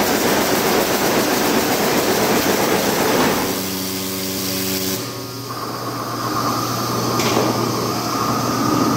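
Picanol jacquard label loom running at speed, a dense, fast, even clatter. About three and a half seconds in the clatter stops, leaving a few steady tones and then a steady low hum with a higher whine.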